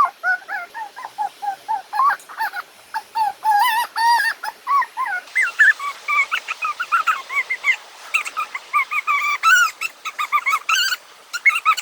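A dog whining: a long run of short, high-pitched whimpers, several a second, growing busier in the second half.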